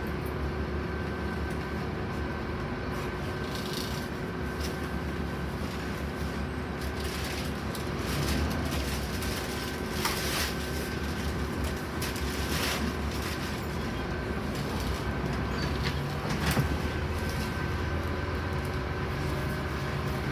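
Scania N270UD Omnicity double-decker bus heard from the upper deck while under way: its diesel engine and the road give a steady low rumble with a faint steady whine. A few short rattles or knocks cut in now and then.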